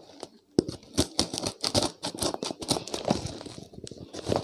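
Scissors cutting through the packing tape along a cardboard box's edge: a run of uneven snips and scratchy tearing, with the tape crinkling.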